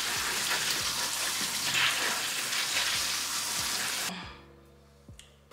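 Water from a pull-down kitchen faucet sprayer hissing onto berries being rinsed in the sink. It shuts off about four seconds in.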